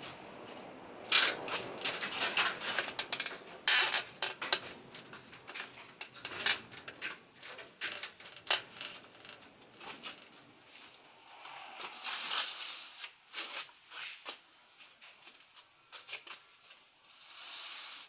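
Leafy tree branches rustling and scraping as a person handles them, with scattered sharp clicks and knocks, the loudest in the first half.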